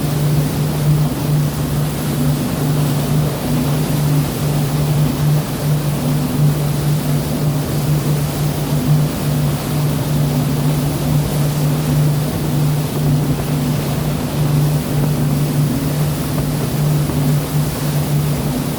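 A boat's engine running with a steady low drone, over the continuous rushing noise of the sea.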